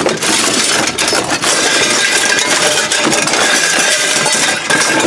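Metal kitchen utensils and a metal tray clattering and clinking continuously as they are rummaged through by hand, with many small overlapping knocks.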